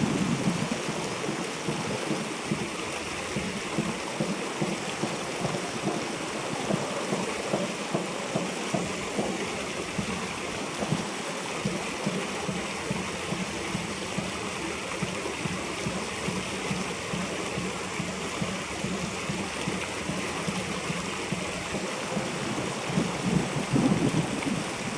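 Shallow river water flowing steadily over a gravel bed.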